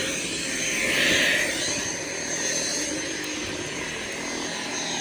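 Dyson V7 Absolute cordless stick vacuum running without its filter: a steady high motor whine over rushing airflow, with the suction noise swelling about a second in and then settling.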